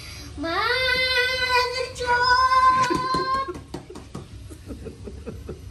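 A young boy's long, high cry, rising in pitch and then held for about three seconds, the pained reaction to a tattoo needle on his forearm. It breaks off into a run of short, broken sounds.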